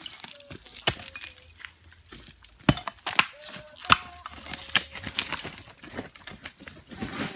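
Yard debris being handled during cleanup: a handful of separate sharp clinks and cracks, spread a second or so apart.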